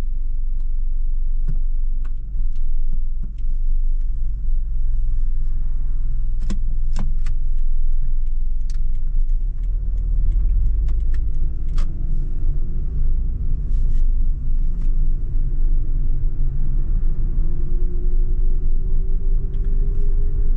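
Car interior while driving: a steady low road and engine rumble, with scattered sharp clicks and knocks and a faint whine that slowly rises in pitch over the last several seconds.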